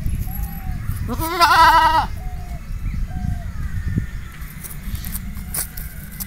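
Goat bleating once, a single wavering call about a second long, starting about a second in.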